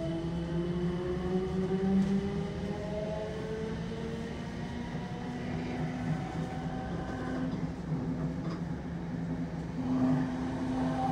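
SWR Class 455 electric multiple unit running, heard from inside the carriage: a traction-motor whine rises steadily in pitch as the train picks up speed, then levels off about halfway through, over the constant rumble of wheels on track.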